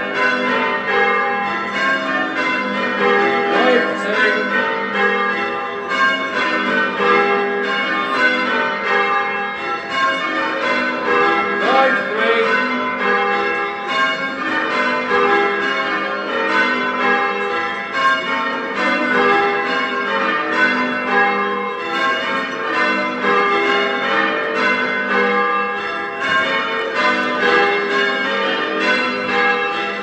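Change ringing on a ring of eight church bells with a 10 cwt tenor in G, the bells struck one after another in a steady, unbroken rhythm.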